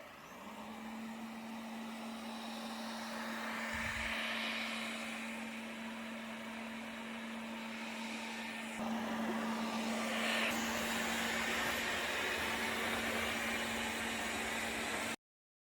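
Everybot 3iPOP robot vacuum cleaning: a steady motor hum with one held tone over a broad whirring noise, growing louder at times as it moves. The sound cuts off suddenly near the end.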